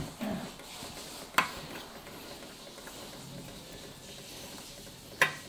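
Three sharp knocks, spaced a few seconds apart: a metal muddler pounding tablets to powder in a small steel bowl.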